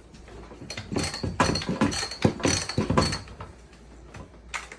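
A quick run of clicks, clunks and rattles from a new Echo CS-310 chainsaw being handled, its plastic and metal parts knocking, bunched about a second to three seconds in.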